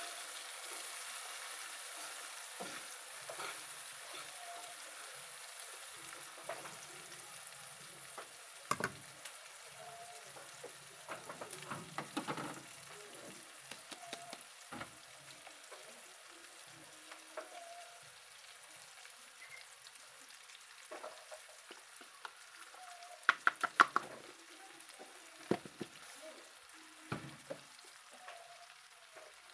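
Chopped yongchak (tree bean) sizzling in hot oil in a wok on a gas stove, the frying hiss slowly dying down. Scattered clicks and knocks from handling, the loudest a quick run of clicks about three-quarters of the way through.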